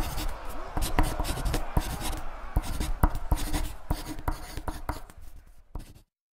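Intro sound effect: a dense, irregular clatter of sharp knocks and clicks over a rough rumbling noise, fading away and cutting off to silence about six seconds in.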